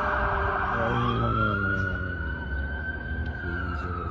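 A siren wailing: its pitch rises over about a second, holds, and begins to fall near the end, over a low rumble.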